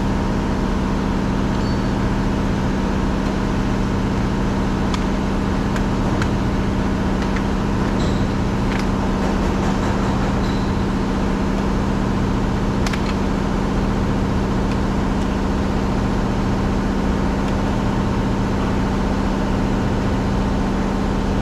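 A steady, unchanging mechanical drone with a strong low hum, like a running engine or machine, with a few faint clicks and taps over it.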